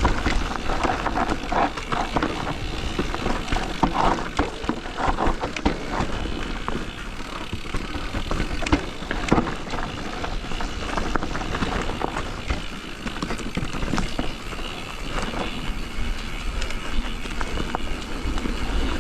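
Electric mountain bike riding down a dry, dusty dirt trail: tyres rolling and skidding over loose ground, with frequent knocks and rattles from the bike over bumps and a steady low rumble.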